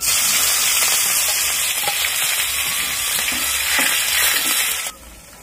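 Chopped green chillies dropped into hot oil with cumin seeds in an iron kadhai for a tadka, sizzling loudly at once and stirred with a ladle. The sizzle stops abruptly near the end.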